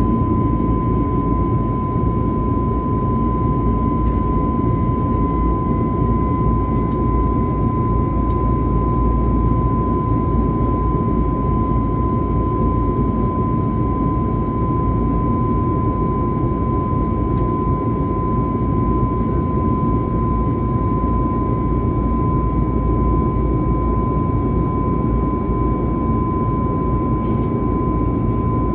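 Cabin noise inside an Airbus A321neo climbing after takeoff, its CFM LEAP-1A turbofans at climb power: a steady deep rumble with a constant high whine over it.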